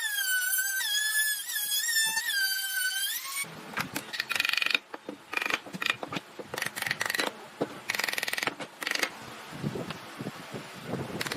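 A melodic line of music for the first three seconds or so, which cuts off abruptly into woodworking tool noise: short bursts with a high whine, each half a second to a second long, repeating several times.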